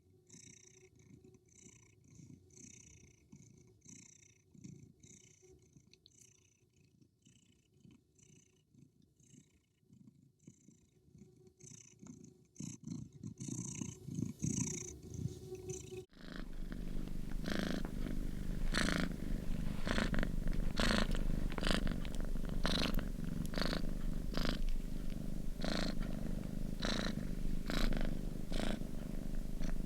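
Domestic cat purring in a steady, rhythmic pulse with each breath. About halfway through it cuts abruptly to a second, louder purring recording.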